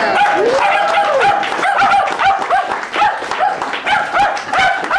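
Dog yipping in a rapid series of short, high yips, about three a second.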